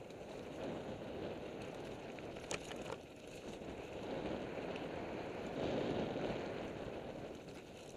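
Mountain bike rolling fast over a dirt forest trail, heard from a helmet-mounted camera: a rushing mix of tyre noise and wind on the microphone that swells about six seconds in, with one sharp knock from the bike about two and a half seconds in.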